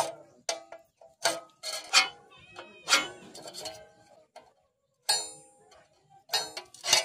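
Steel ruler and scriber clicking and scraping on a steel plate as cutting lines are marked out: an irregular string of sharp metallic clicks, some ringing briefly, with a pause of about a second in the middle.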